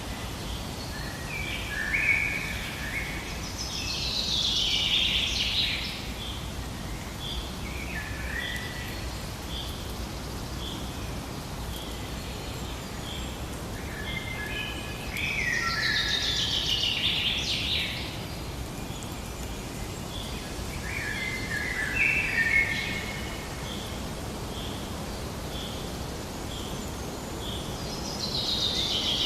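Birds singing over a steady background hiss. One short high note repeats at an even pace, about every two-thirds of a second. Louder, more complex song phrases come in several times.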